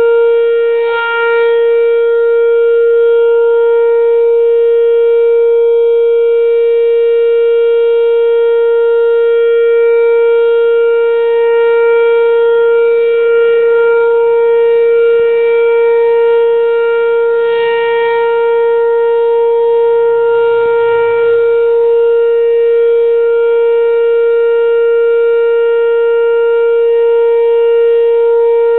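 Whelen Vortex-R electronic outdoor warning siren sounding a steady tone, holding one pitch with several overtones, loud throughout.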